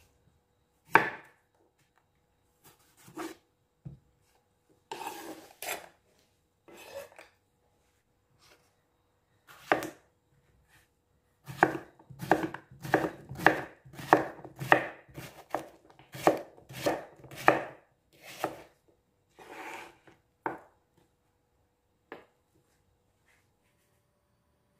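Knife cutting food on a cutting board: a few separate cuts, then a steady run of about fifteen cuts at roughly two a second, then a few more.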